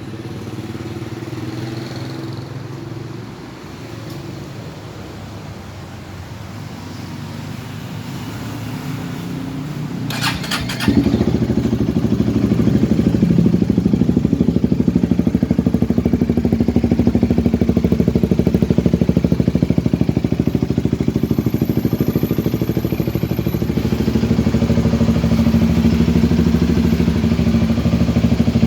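KTM RC250's single-cylinder engine: a quieter hum, a short whirr of the electric starter about ten seconds in, then the engine catches with a sudden jump in loudness and idles steadily with an even, rapid pulse.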